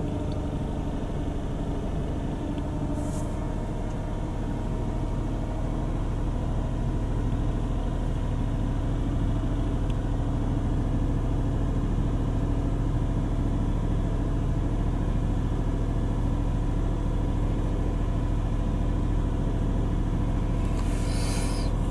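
Mercedes AMG 55 V8 engine idling steadily in neutral, an engine diagnosed with a misfire and with lean and rich fuel-trim codes. A brief hiss comes near the end.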